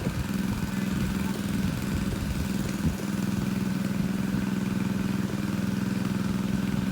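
Engine of a water pump running steadily at constant speed as it pumps out a fish pond, a low even drone.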